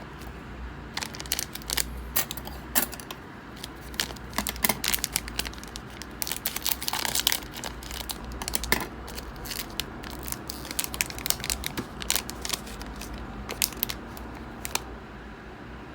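Trading cards and their pack wrappers being handled: a dense run of quick clicks, snaps and crinkles as packs are opened and cards are flipped through.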